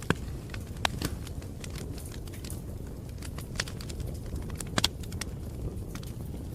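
Wood fire crackling: irregular sharp pops and snaps over a low, steady rumble, with the loudest pops just after the start and again about three-quarters of the way through.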